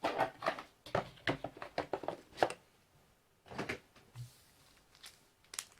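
Trading-card box and pack packaging being handled: a quick run of short rustles and taps for about the first two and a half seconds, then a few scattered taps.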